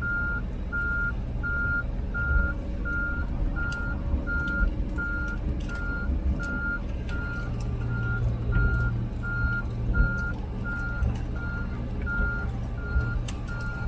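Komatsu PC16 mini excavator's travel alarm beeping steadily, about three beeps every two seconds, over the low, steady running of its diesel engine as it tracks along.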